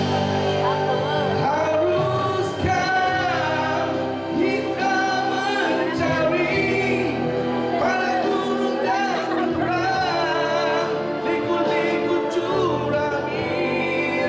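A man singing a Malay song into a microphone, amplified through a PA over a backing music track.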